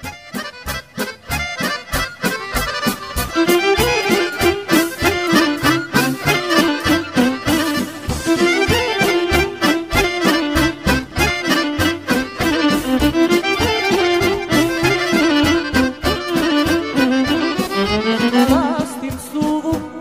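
Serbian folk music: an accordion plays a fast, ornamented melody over a steady beat from the band, fading in over the first few seconds. It is the instrumental introduction, before the singing begins.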